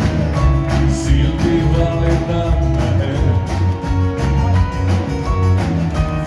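A band playing live: drums keeping a steady beat under electric and acoustic guitars and keyboard.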